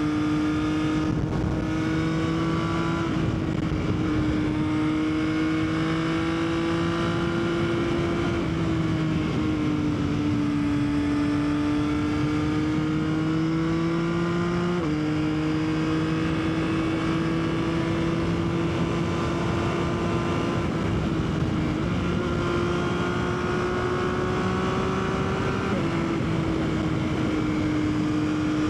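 Yamaha XSR900's three-cylinder engine running steadily at road speed, its pitch drifting slowly up and down with a few small sudden steps, over a steady rush of wind.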